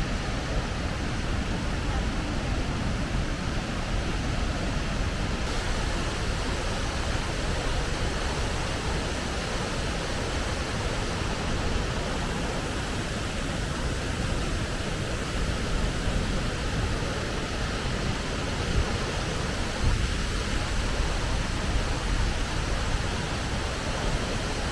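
Ogawa Falls waterfall: a steady, unbroken rush of falling water.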